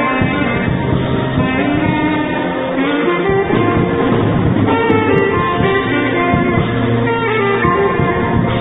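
Saxophone playing a Christmas carol melody in long held notes, over a musical accompaniment with low sustained bass notes.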